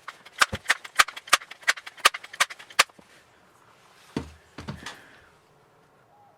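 A quick, uneven run of about a dozen sharp clicks over two and a half seconds, then two dull thuds.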